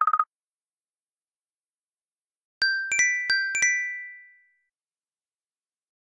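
Apple iPhone ringtone previews. A rapid pulsing tone cuts off just after the start; about two and a half seconds in, a bright electronic chime of five quick notes rings out and fades over about two seconds.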